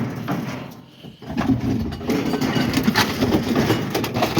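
An engine running steadily, dipping in level about a second in.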